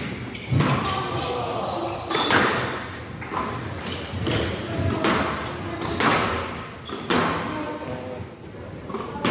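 Squash rally: the ball cracked by rackets and slapping off the walls and glass of the court, sharp hits roughly once a second, echoing in a large hall.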